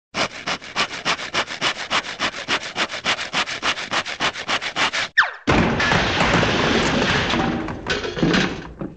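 Cartoon sound effect of sawing through a floor and falling: about five seconds of fast handsaw strokes, about seven a second, then a short falling whistle and a long loud crash of tumbling debris, with a last clatter near the end.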